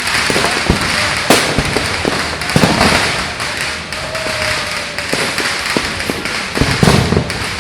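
Fireworks going off: many irregular sharp bangs and crackles over a steady hiss.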